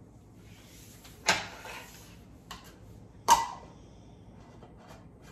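Two sharp clacks about two seconds apart, with a few lighter clicks between and after, as glass jars of milk and their plastic caps are handled on a countertop.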